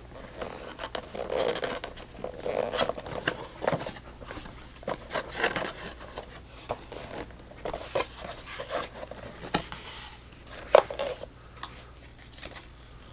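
Cardboard flashlight box and its paper contents being opened and handled: irregular rustling, scraping and light clicks, with one sharper click near the end.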